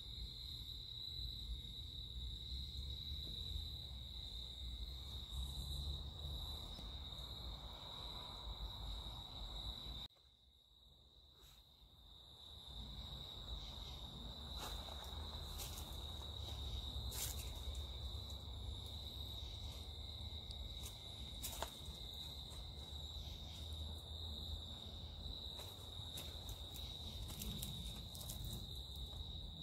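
Crickets trilling in one steady, unbroken high tone, with a wood fire in a fire pit giving scattered crackles and pops. All sound drops away for about two seconds a third of the way through.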